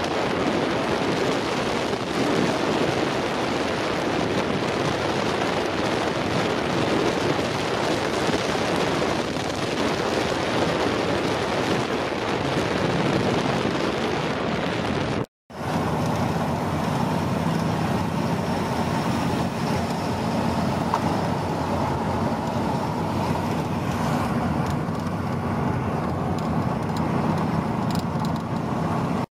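Vehicle travelling at road speed: a steady rush of wind and road noise. About halfway through it cuts out for a moment, then returns with a steady engine drone more prominent.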